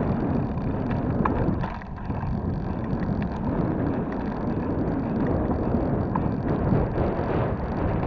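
Wind rushing over the microphone of a moving mountain bike, a steady low rumble mixed with tyre noise on the paving. It dips briefly about two seconds in.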